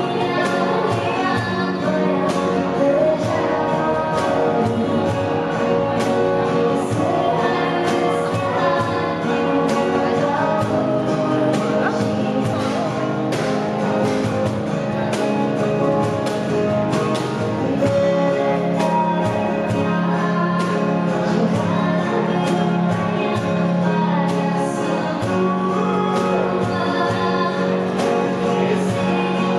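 Live acoustic duo: a woman singing a song into a microphone over her own strummed acoustic guitar, with a hand-played cajón tapping out a steady beat.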